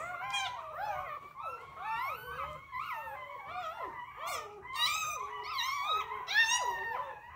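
About two-week-old puppies whining and squealing in a quick run of high, wavering cries that rise and fall in pitch, sometimes overlapping.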